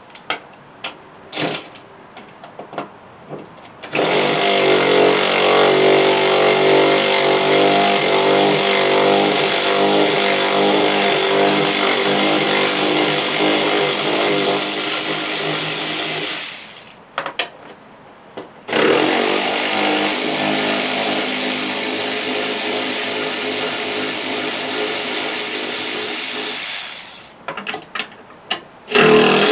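Small impact driver running in long steady runs, backing out the bolts that hold a riding-mower deck's blade spindle: one run of about twelve seconds and another of about eight, then a third starting near the end, with clicks and knocks of the bolts and tool being handled in between.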